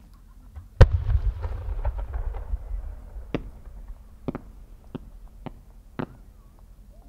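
A No. 8 (8-inch) firework shell fired from its mortar with one loud boom and a low echoing rumble. About three seconds later come five short sharp pops, the small effects attached to its climbing trail going off one after another.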